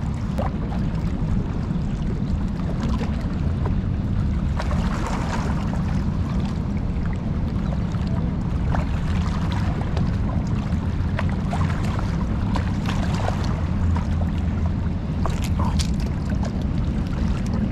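Steady low rush of churning river water pouring below a dam.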